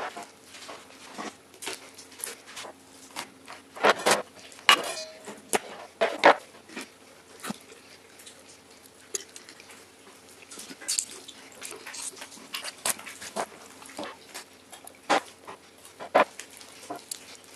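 Raw whole chicken being pulled apart by hand on a plastic cutting board: irregular wet squelches, tearing of skin and meat, and small knocks against the board. The noises are louder about four to six seconds in and again near the end, over a faint steady hum.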